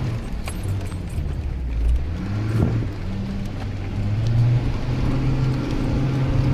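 Off-road SUV engine running under way, easing off near the start and then pulling up in pitch as it is given gas, with a few knocks and rattles from the vehicle.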